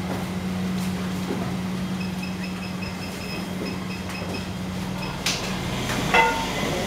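Kitchen ambience: a steady low machine hum, with a rapid high pulsing chirp, about five a second, for a couple of seconds in the middle. About six seconds in, a sharp ringing clank.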